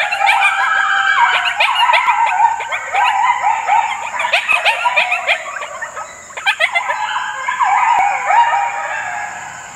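Recorded coyote group howl, the MFK Coyote Assembly sound, played through an electronic predator caller: many coyotes yipping and howling over one another at once, dying away near the end.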